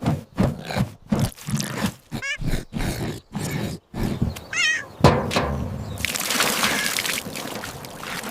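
A quick run of soft thumps, about two or three a second, with two short, wavering kitten mews, one about two seconds in and one about four and a half seconds in. About six seconds in, a steady splashing pour of water from a watering can begins.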